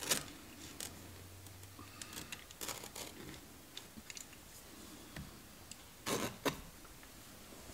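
Faint scattered clicks, scrapes and rustles of hands trimming and tucking a car headliner's cloth along the windshield edge with a utility knife, with a couple of sharper handling knocks about six seconds in.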